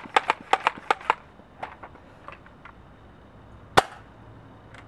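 Buzz Bee Extreme Blastzooka air-pump foam blaster: a quick run of clicking pump strokes stops about a second in, a few soft handling clicks follow, and the blaster fires a Nerf missile with one sharp pop near the end.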